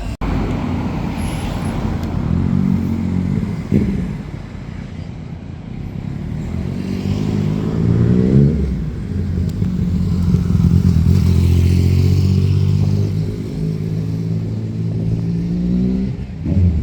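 A motor vehicle's engine accelerating, its pitch climbing until it drops sharply about halfway through as it changes gear, then running steadily until the end.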